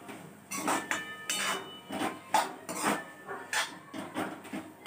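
A metal spatula scraping and knocking against a metal kadhai as it stirs dry cluster-bean bhaji, in a run of uneven strokes. A few of the strokes leave a brief metallic ring.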